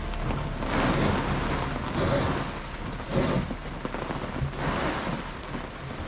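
Rushing, splashing water in repeated surges about once a second, with wind noise on the microphone.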